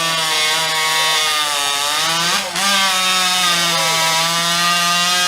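Two-stroke chainsaw running flat out while cutting through a log, its pitch held steady and sounding like a motorbike. The sound dips briefly about halfway through.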